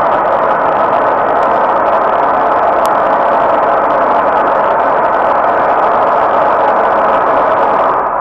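Steady, loud rushing roar of a running gas turbine, heard muffled as if through clothing.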